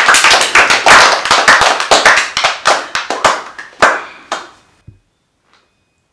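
A small group applauding, with dense rapid clapping that thins out and stops about four and a half seconds in.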